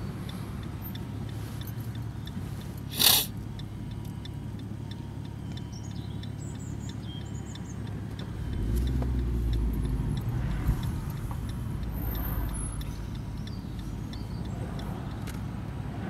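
Car cabin noise while driving: a steady low rumble of engine and tyres, with a short loud hiss about three seconds in. From about eight and a half seconds the low rumble grows heavier for a few seconds, with a single click in it.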